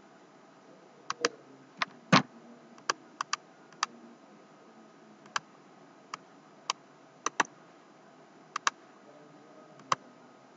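Computer mouse clicks: about fifteen sharp clicks at irregular intervals, several in quick pairs, the loudest about two seconds in, over a faint steady hiss.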